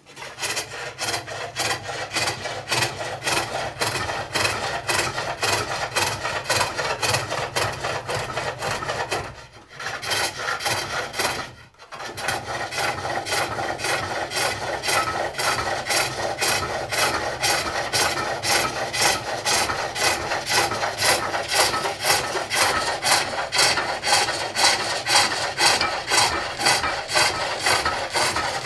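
Hook tool cutting wood inside a box blank turning on a pole lathe run in reverse, a rasping cut repeated about three times a second. The cutting stops twice briefly about a third of the way in.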